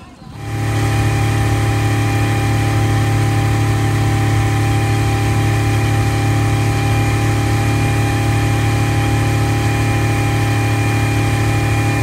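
Outboard motor of a powerboat running at a steady speed while towing a line of sailing dinghies. It makes a constant drone with a strong low hum and a few steady higher tones, which comes in abruptly about half a second in.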